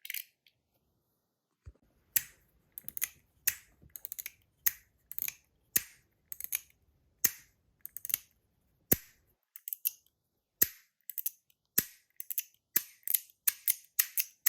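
Titanium fidget toy worked by hand, giving sharp metallic clicks and snaps at an uneven pace of one to three a second, some in quick doubles, starting after a short pause.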